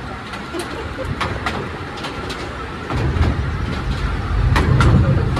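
Narrow-gauge train running, heard from aboard, with irregular sharp clicks from the wheels on the track over a low rumble. The rumble grows louder about three seconds in and is strongest near the end.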